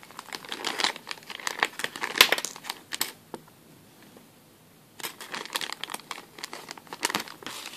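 Small clear plastic zip-lock bag crinkling as it is handled and metal hair-clip findings are tipped back into it. The crinkling stops for about two seconds in the middle, then starts again as the bag's zip seal is pressed shut.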